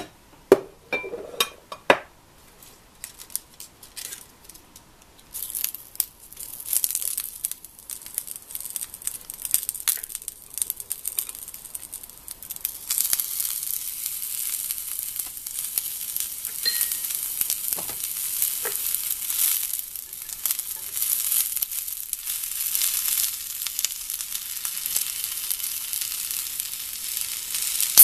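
Food sizzling in a cast-iron skillet. A steady hiss starts a few seconds in and gets louder and fuller about halfway, once bean sprouts and cabbage are in the pan. A few clicks and knocks are heard near the start.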